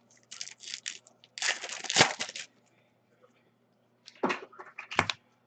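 Crinkling and tearing of trading-card pack wrappers, loudest about two seconds in, then two sharp knocks near the end.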